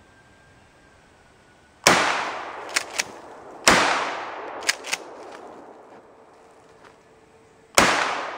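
Three 12-gauge slug shots from a 20-inch-barrel Maverick pump-action shotgun, the first two under two seconds apart and the third about four seconds later, each blast trailing off in echo. After each of the first two shots the pump is racked with a quick double clack.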